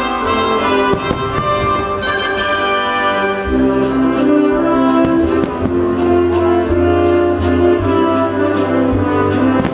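Orchestral music with strings and brass, with scattered sharp cracks of fireworks bursting.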